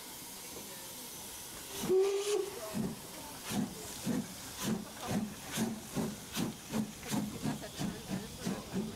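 Narrow-gauge steam locomotive hissing steam, giving a short whistle note, then chuffing as it pulls away: about two exhaust beats a second, quickening slightly.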